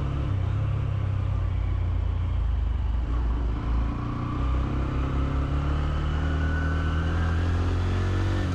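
Honda CB125F's single-cylinder 125cc engine running while riding, under a heavy low rumble; its note climbs slowly through the second half as the bike speeds up.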